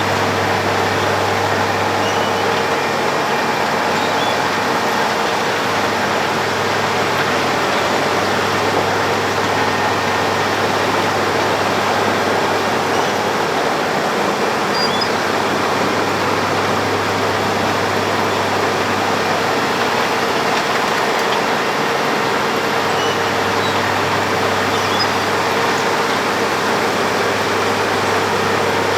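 Road planer (cold milling machine) working: a loud, steady mechanical din with a constant engine hum that eases briefly twice.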